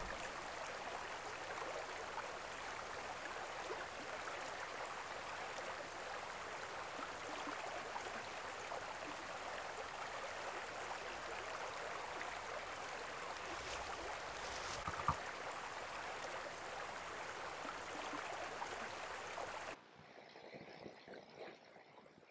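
Small mountain creek flowing over a gravel bed, a steady babbling rush of water. It cuts off suddenly near the end, leaving only a faint, quieter background.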